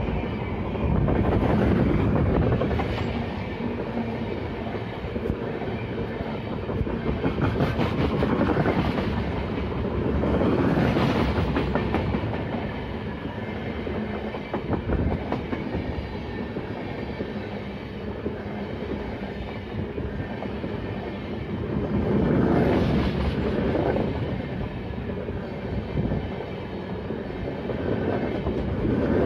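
LHB passenger coaches of an express train rolling past at speed close by. The wheels clatter over the rail joints in a continuous rumble that swells and eases several times.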